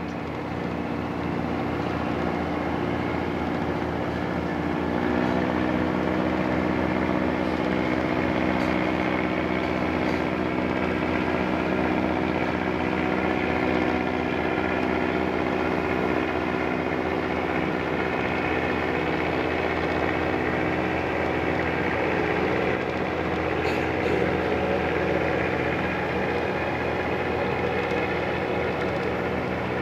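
Cruise boat's engine running steadily: a constant drone with several held tones, growing a little louder over the first few seconds.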